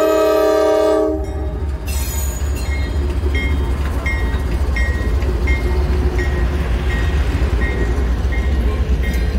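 Diesel locomotive air horn sounding a multi-tone chord that cuts off about a second in. The low rumble of the passing train follows, with a bell dinging about every three-quarters of a second.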